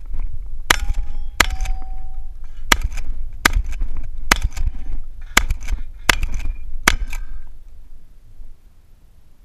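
Eight shotgun shots fired in quick succession over about six seconds, most about a second apart. A short metallic ring follows a few of them, from steel targets being hit.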